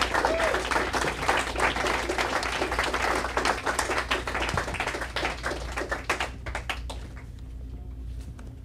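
Audience applauding, thinning out about seven seconds in to a few scattered claps.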